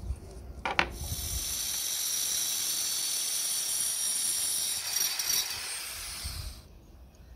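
Angle grinder with a cut-off disc cutting a steel flat bar held in a vise: a sharp click just under a second in, then a steady, high-pitched grinding hiss for about five and a half seconds that stops shortly before the end.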